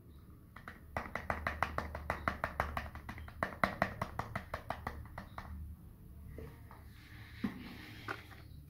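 Plastic bottle of ground black pepper shaken over a plastic tub, a quick run of taps, about six or seven a second, starting about a second in and stopping after about four and a half seconds. A few single soft knocks follow near the end.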